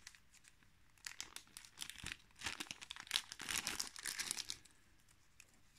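Thin plastic parts bag crinkling in the hands as a battery strap is taken out of it. The crackling comes on and off, starting about a second in and stopping shortly before the end.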